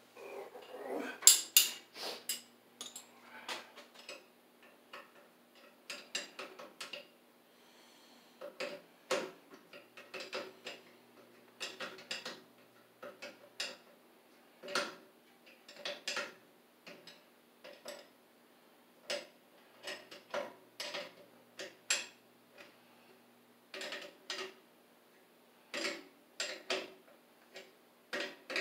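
Irregular metallic clinks, clicks and knocks of hand tools and metal fittings being handled while working on a boiler's circulating pump and its piping, over a faint steady hum.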